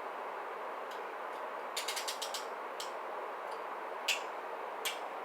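Handcuffs being ratcheted: a quick run of about eight ratchet clicks as the cuff jaw swings through, then two single clicks a little later.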